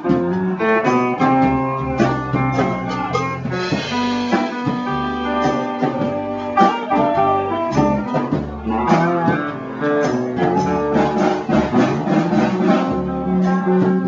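Live band music, an instrumental passage with no singing: a guitar picking quick runs of notes over a steady bass line.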